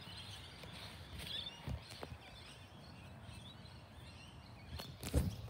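Faint outdoor ambience: a low steady rumble with a few distant bird chirps in the first couple of seconds, and a few soft knocks that fit footsteps on grass.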